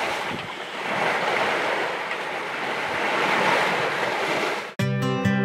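Sea water rushing past the hull of a sailing yacht under way, with wind. About five seconds in it cuts off abruptly and guitar music begins.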